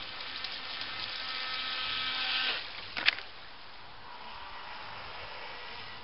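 Pro Boat Mini-V RC jet boat's stock brushed electric motor whining at a steady pitch, growing louder as the boat comes in, then cutting off suddenly about two and a half seconds in. A single sharp click follows half a second later, then a quieter steady wash of water noise with a faint tone.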